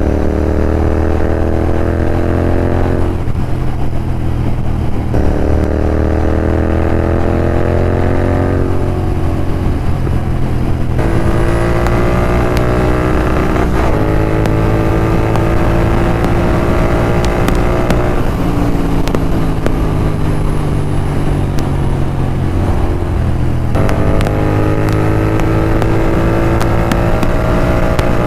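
Royal Enfield Continental GT 650's parallel-twin engine through a Red Rooster aftermarket exhaust, ridden hard at speed. The engine note climbs steadily under throttle and drops sharply at upshifts a few times, sags for a few seconds about two-thirds of the way through, then picks up again near the end.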